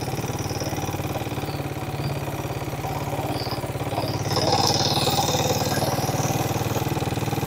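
Small motorcycle engine running steadily as the bike climbs a gentle uphill road. It gets a little louder about halfway through.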